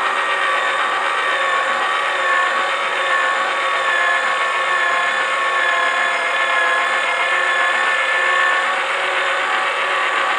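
Toy pottery wheel's small electric motor running steadily under load, a whirring hum with a high, even whine.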